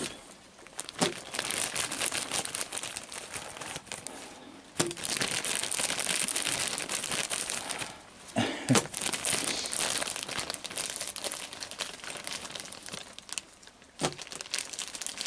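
Plastic bag of marshmallows crinkling and rustling in stretches as handfuls are taken out and tossed, with a few sharp clicks and short pauses between.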